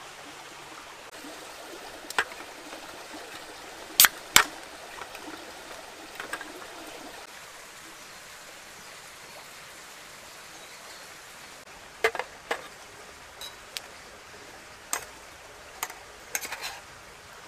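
Steady rushing outdoor hiss with scattered sharp clicks and knocks of camp gear being handled; the loudest pair comes about four seconds in, and near the end a quick run of clinks as metal tongs work in a stainless steel cup.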